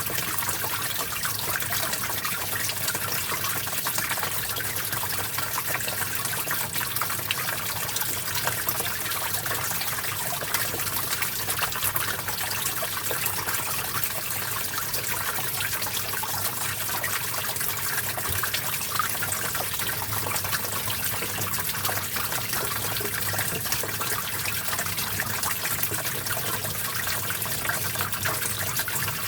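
Small stream of water flowing and trickling steadily, a constant splashing, bubbling rush.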